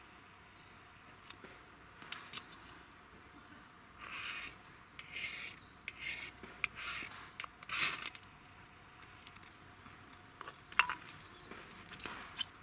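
A knife blade scraping in a run of short rasping strokes over birch-bark tinder to light a fire, followed by a couple of sharp clicks near the end as the bark catches.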